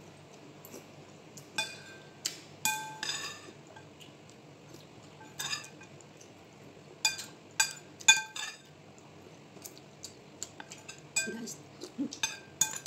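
Metal spoon clinking against a ceramic soup bowl while scooping up soup: many short, sharp, ringing clinks in small clusters.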